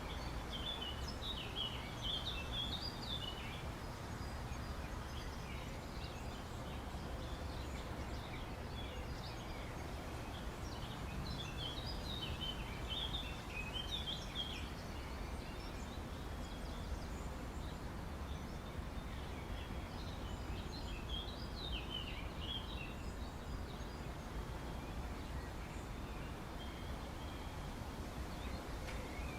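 Outdoor ambience: a steady low rumble with a bird singing bursts of short chirping notes, three main phrases about ten seconds apart.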